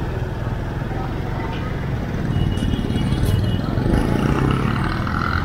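Motorcycle engine running at low speed with a steady low note, amid the noise of slow, congested street traffic.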